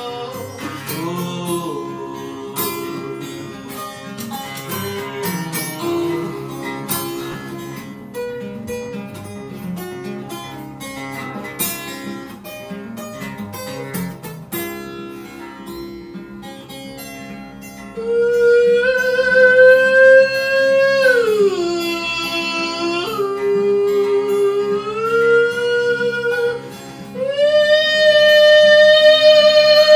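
Acoustic guitar strummed and picked in a blues song, an instrumental stretch without words. About two-thirds of the way in, loud long held notes join it, sliding down and back up in pitch.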